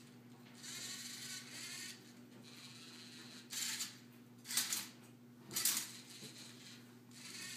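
Lego Mindstorms NXT motors of a Tilted Twister Rubik's-cube-solving robot whining as it moves the cube and its sensor arm to scan the cube's colours. Three short, louder mechanical bursts come about a second apart in the middle.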